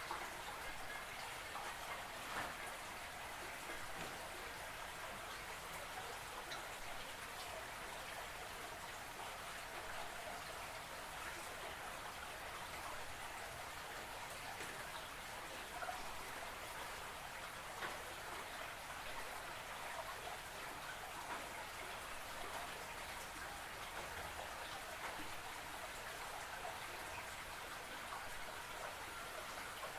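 Creek water running steadily, a dense fine patter of small splashes.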